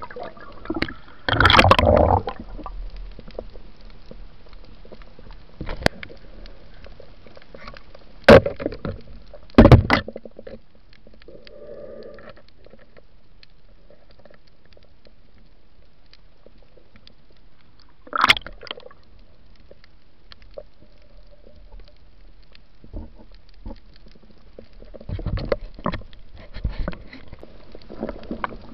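Underwater sound during night spearfishing: a steady low water hiss, broken by a few sharp knocks and short bursts of splashing, the loudest about a second and a half in, twice between eight and ten seconds, once past eighteen seconds, and a cluster of smaller ones near the end.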